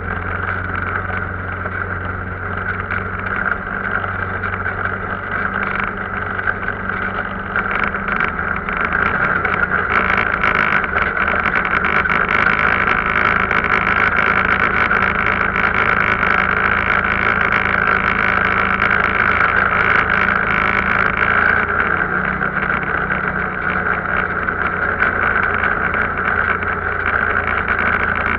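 Arctic Cat off-road vehicle's engine running under way. It gets louder about eight to ten seconds in as it picks up speed, with a steady drone and a rattly hiss over it.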